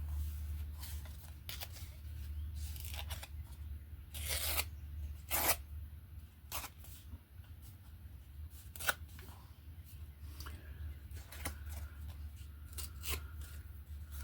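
Paper being cut, torn and handled: a series of short crisp rustles and snips, a couple of longer ones around the middle, over a steady low hum.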